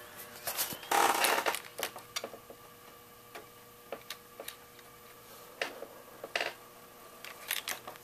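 Dell Optiplex GX280 desktop running just after power-on, its fans giving a steady hum: the newly fitted 160 W power supply is working. Scattered light clicks and rustles, with a louder burst of rustling about a second in.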